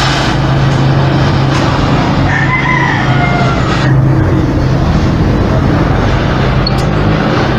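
Brazing torch burning with a steady, loud hiss of its flame held close. A rooster crows faintly in the background between two and four seconds in.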